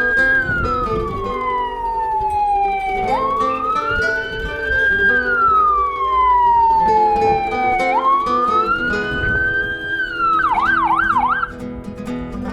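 Electronic siren wailing, each cycle rising quickly and then falling slowly, three times, then switching to a fast yelp for about a second near the end. Background music plays underneath.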